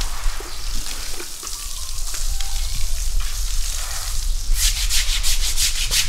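Scrubbing strokes on an elephant's hide, a steady rasping rub that turns into fast, even back-and-forth strokes, about five a second, from about four and a half seconds in.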